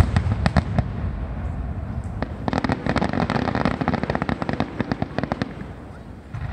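Aerial fireworks shells bursting: a few heavy booms in the first second, then a dense run of rapid crackling pops from about two and a half to five and a half seconds in, dying away near the end.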